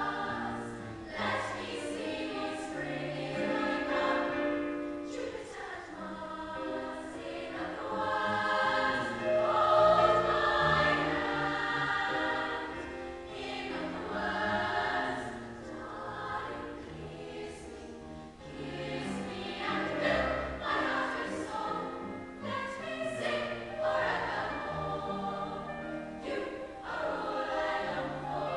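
Large school choir singing in harmony, swelling to its loudest about a third of the way through.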